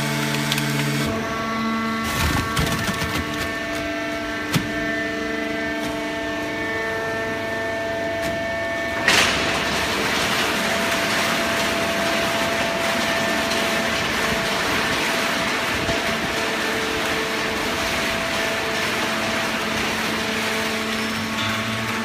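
Horizontal hydraulic baler machinery running: a steady mechanical hum with several held tones that shift now and then, broken by one sharp bang about nine seconds in, after which the running noise goes on more evenly.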